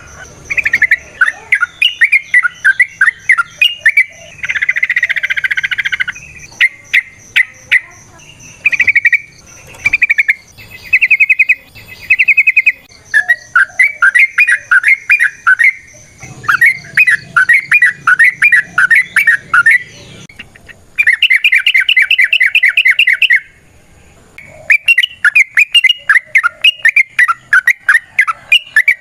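Yellow-vented bulbul (trucukan) singing in long, rapid runs of chattering, rattling notes, each run lasting a second or more with brief pauses between them. This is the fast rambling song that keepers call 'ropel'.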